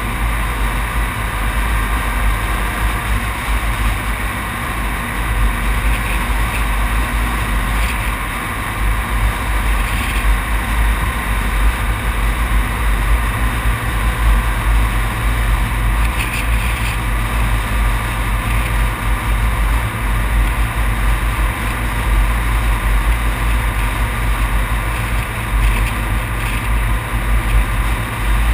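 Steady wind rumble and road noise from a vehicle driving at highway speed, with wind buffeting a front-mounted camera's microphone.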